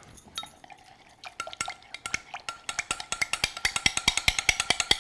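A spoon stirring oil, honey and lime juice in a glass measuring cup, clinking against the glass in a fast run of about seven or eight strikes a second. It starts about a second and a half in and grows louder.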